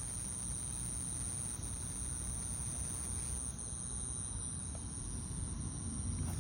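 Steady high-pitched insect trill, like crickets, over a low rumble.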